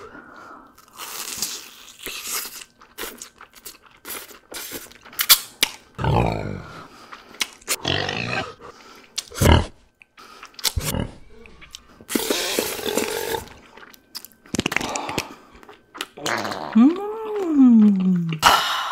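Close-up crunching and chewing of cheese balls, a run of crisp crunches, broken by a few deep belches; the last, near the end, is long and rises then falls in pitch.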